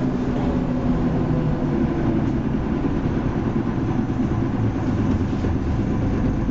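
Leyland Lynx Mk2 bus's Cummins L10 diesel engine running while the bus is under way, heard from inside the passenger saloon with a steady rumble. Its note eases down over the first couple of seconds, then holds steady.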